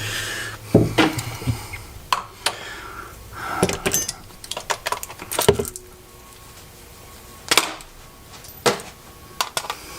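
Scattered metallic clicks, taps and scrapes of pliers and a punch working small pins out of a lightsaber hilt, with irregular pauses between. One sharper knock comes about two-thirds of the way in.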